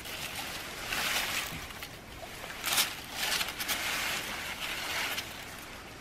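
Large fine-mesh nylon fishing net rustling and swishing as it is hauled and bunched up by hand, in repeated swishes with a sharper one about three seconds in.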